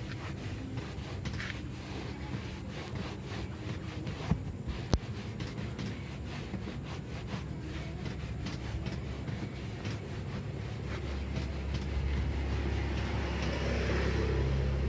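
Cloth rubbing back and forth over a leather car seat, wiping dirt off it. Two short sharp clicks sound about four and five seconds in.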